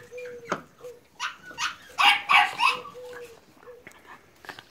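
Staffordshire terrier puppies barking: a quick run of about five short, sharp barks starting about a second in.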